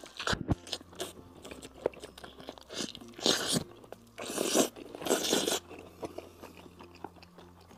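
Close-up bites and chewing of crispy fried chicken, a string of crunches with the loudest three a little past the middle.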